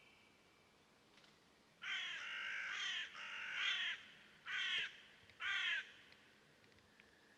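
A crow cawing four times: two long caws run close together, then two short caws about a second apart. A faint steady bird tone sounds beneath near the end.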